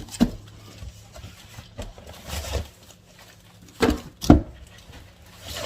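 Pastry boxes being handled and set down: a knock just after the start, a brief rustle in the middle, then two knocks in quick succession about four seconds in.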